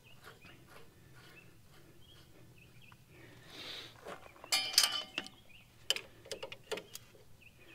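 A few light clicks and taps from handling tools and parts at the bulldozer's track adjuster: a quick cluster a little past halfway, then scattered single clicks.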